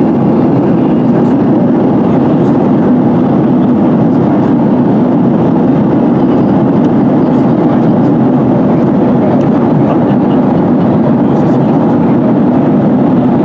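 Boeing 737-800 cabin noise heard from a window seat behind the wing: a loud, steady rush of engine and airflow noise with no change in pitch or level.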